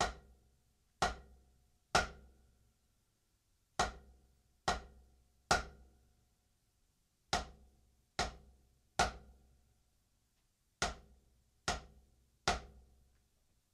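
Drumsticks striking a drum practice pad in a repeating pattern of two full strokes and a down stroke: twelve accented strokes in four groups of three, about a second apart within each group, each with a short ringing decay.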